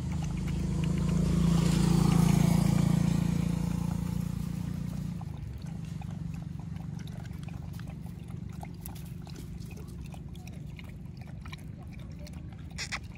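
Dogs lapping milk from plastic bowls, with small wet clicks. A low hum swells to its loudest about two seconds in and fades away by about five seconds.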